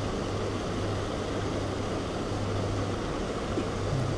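A steady low machine hum under even, continuous noise.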